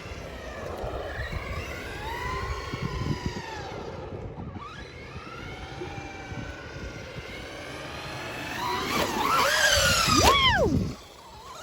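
Remote-control car's small electric motor whining, its pitch rising and falling as it speeds up and slows. It gets louder near the end, then the whine drops steeply in pitch and stops.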